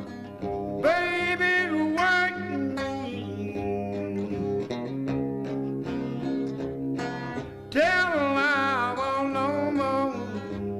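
Background music: a song with guitar and a singing voice, the voice coming in about a second in and again near eight seconds.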